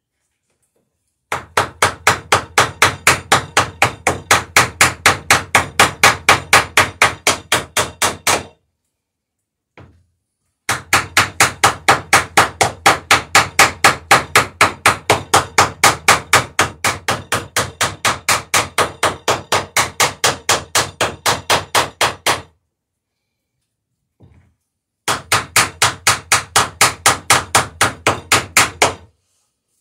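Small hammer peening rivets in the plank lap of a wooden dory's third strake, in three long runs of quick, even blows, about five a second, with short pauses between.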